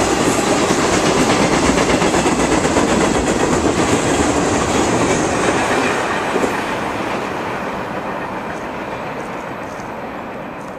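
The tail end of a mixed freight train, tank cars and a boxcar, rolling past with a steady run of wheel clacks. About halfway through, the last car goes by and the sound fades steadily as the train moves away.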